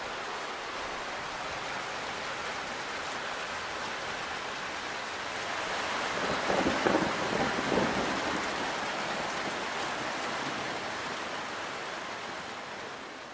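Steady rain hiss, with a crackling rumble of thunder swelling for about two seconds around the middle; the rain fades down toward the end.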